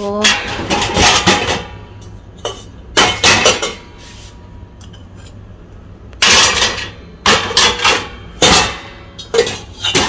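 Stainless steel pots, bowls and a steel kadai clanking against each other and the wire racks as they are loaded into a dishwasher, in several separate clatters with short pauses between.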